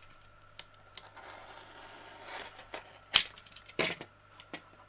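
Snap-off utility knife slicing through packing tape on a cardboard box, a faint scratchy drag. It is followed a little after three seconds by a sharp knock and then a second clack as the plastic knife is handled and put down on the cutting mat.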